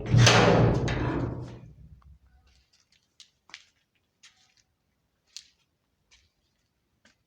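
A gate being opened: a loud scraping rumble that peaks at once and dies away over about two seconds, followed by several faint clicks.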